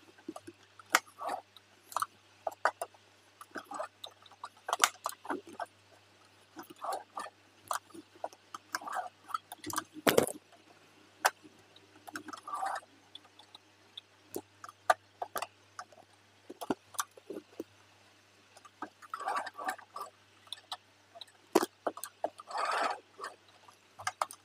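Singer 2263 sewing machine stitching slowly and stop-start, irregular clusters of short needle clicks over a steady low hum.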